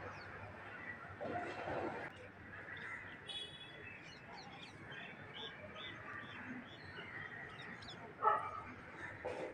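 Faint outdoor ambience with a dog barking now and then, the loudest bark about eight seconds in, and small bird chirps.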